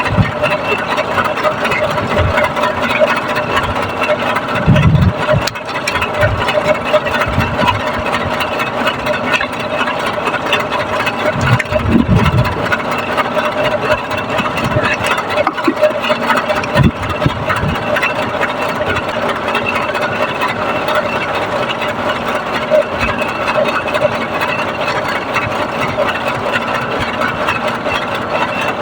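A motor running steadily with a constant hum, with a few low thumps along the way.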